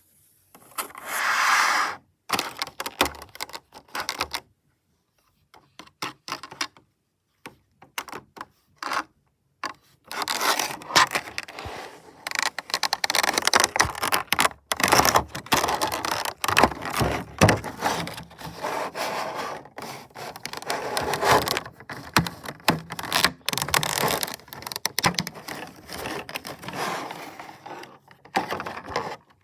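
A Funko Pop box being handled and opened: dry scratching, tapping and crackling of the cardboard and plastic packaging. It comes in short scattered bursts with silent gaps at first, then runs dense and busy from about ten seconds in.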